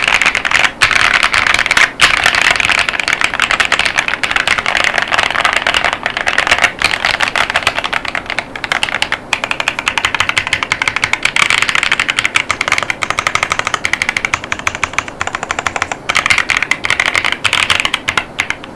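Fast continuous typing on an AJAZZ AK980 mechanical keyboard with KiiBoom Taro Cream tactile switches and PBT keycaps: a dense run of keystroke clacks, broken by a few brief pauses.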